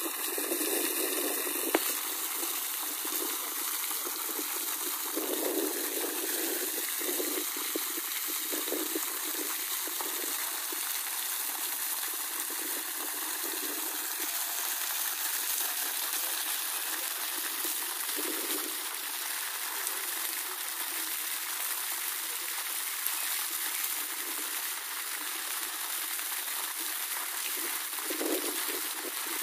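Steady gush of water pouring from a borewell outlet pipe, the sign that the 3 HP submersible pump down the bore is running and delivering water. A single sharp click comes a little under two seconds in.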